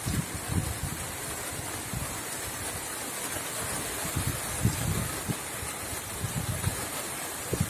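Steady hiss of rain falling, with gusts of wind buffeting the microphone in irregular low thumps.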